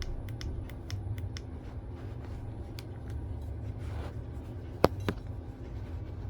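Light metallic clicks and handling noise from the parts of a bolt-action rifle's bolt being handled, with one sharper click nearly five seconds in and a smaller one just after.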